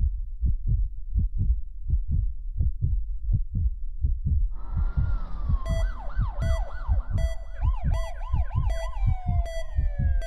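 Intro sound design: a heartbeat-like bass thump about twice a second, joined about four and a half seconds in by a hiss, then by wailing, siren-like electronic tones that rise and fall.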